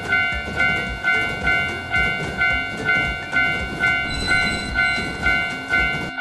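Japanese railroad crossing warning bell ringing its steady 'kan kan', about two strokes a second, over the noise of a passing train.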